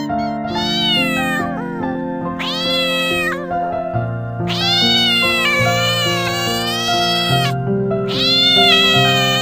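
A cat meowing four times over background music: three short, high meows, with the third call, about halfway through, drawn out to around three seconds.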